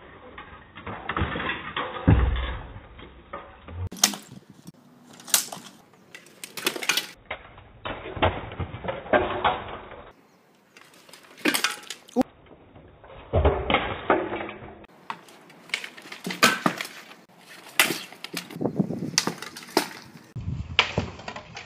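Training swords and spears striking wooden kite shields and armour in sparring: sharp knocks and clanks in bursts, alternating with quarter-speed slow-motion replays in which the same hits sound deep and drawn out.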